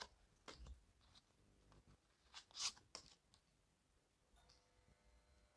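Near silence: room tone with a few faint, brief clicks, the loudest about two and a half seconds in.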